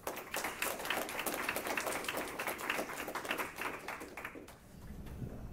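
Audience applauding: many hands clapping for about four seconds, then dying away.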